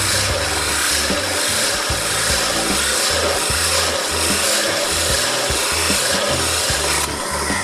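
Wood being worked by rubbing strokes, steady at about two a second, changing character about seven seconds in.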